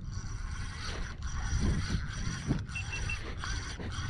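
Spinning fishing reel whirring steadily, with a faint high whine and a brief dip about twice a second, as line runs on it while jigging for giant trevally.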